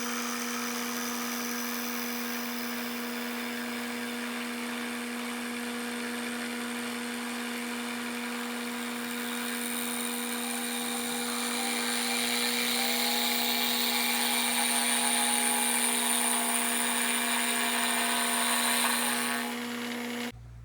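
Milling machine running, its 3/4-inch two-flute high-speed steel end mill cutting a track slot: a steady motor hum under the cutting noise. The cutting grows louder about halfway through and cuts off abruptly near the end.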